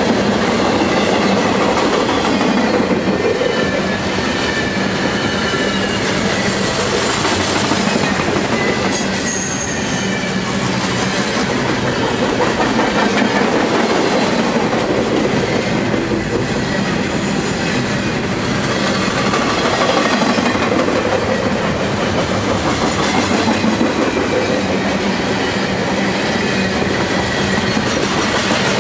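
Double-stack container well cars of an intermodal freight train rolling past: a steady rumble and clatter of steel wheels on the rails, with thin high wheel squeals now and then.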